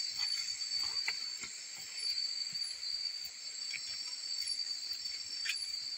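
Chorus of night insects, crickets or similar, chirring steadily on two high pitches, with a few faint knocks and handling clicks over it.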